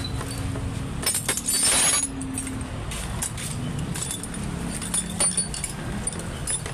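Metal tools and parts clinking and rattling in a run of sharp clicks while motorcycle wheel hub bearing work goes on, with a short scraping noise about a second and a half in. A steady low rumble runs underneath.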